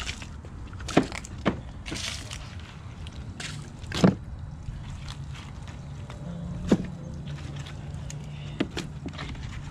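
Wet fish being picked up and dropped into a plastic cooler: scattered knocks and wet slaps, the loudest about four seconds in, over a low steady hum.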